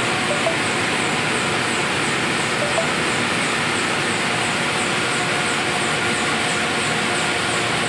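Flexographic printing press running steadily as printed plastic film passes over its rollers: an even mechanical running noise with a faint, regular high ticking.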